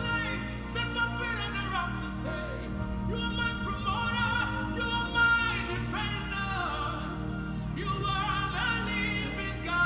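Background music: a gospel song with a woman singing over steady low accompaniment.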